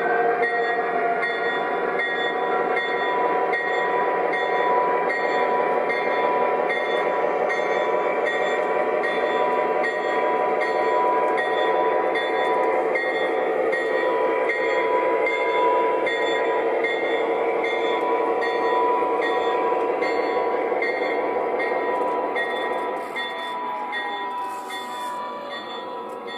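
O gauge model diesel locomotive running on three-rail track: a steady mechanical hum with a constant whine. The sound drops away about three seconds before the end as the locomotive moves off behind the buildings.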